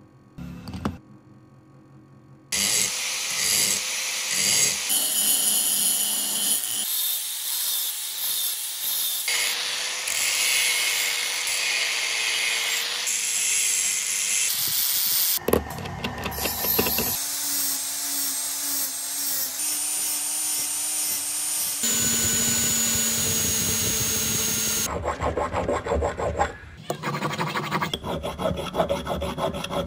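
Electric angle grinder with an abrasive sanding disc grinding and smoothing a steel hammer head, in a run of short clips with abrupt cuts; the motor's whine sits at a different pitch in each clip. Near the end, rhythmic scraping strokes on the steel.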